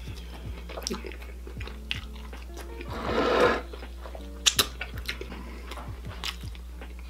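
Background music under close-miked eating sounds: sharp mouth clicks and chewing, with one louder stretch of chewing lasting about half a second around three seconds in.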